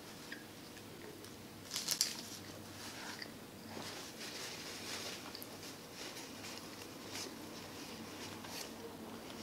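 Close-miked mouth sounds of someone chewing a bite of an egg-and-cheese breakfast sandwich with the mouth closed: soft wet clicks and smacks, with a cluster of sharper clicks about two seconds in.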